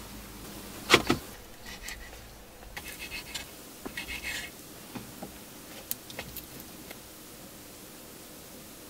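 Cooked octopus being handled with metal tongs and cut with a folding knife on a wooden cutting board: a sharp click about a second in, then scattered short scrapes and light taps.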